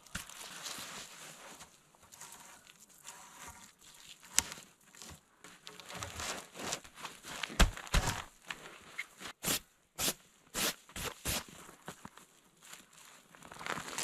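Tarp rustling and crinkling as it is pulled and wrapped around the log rails of a bushcraft cot, with a run of sharp knocks and clicks in the second half, the loudest about eight seconds in.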